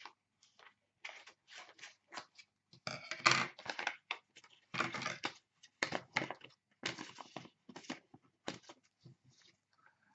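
Scissors cutting open a cardboard coin holder: a string of irregular snips and cardboard rustles, the loudest about three seconds in.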